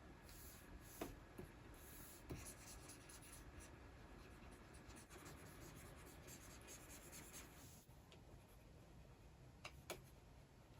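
Stylus nib of a Wacom Cintiq pen display scratching softly across the screen in short drawing strokes, with a few light clicks of the pen tapping, two close together near the end.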